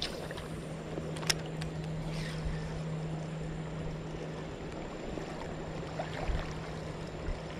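Shallow creek water running steadily over a rocky riffle, with one sharp click about a second in.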